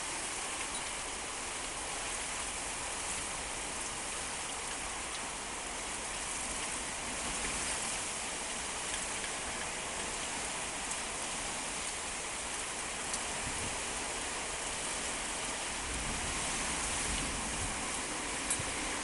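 Heavy rain in a fierce windstorm, pouring steadily with a few sharp ticks of drops striking close by.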